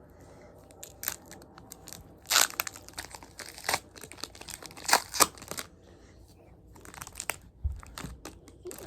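Foil booster-pack wrapper crinkling and tearing as the pack is opened, in irregular rustles with a few sharper crackles.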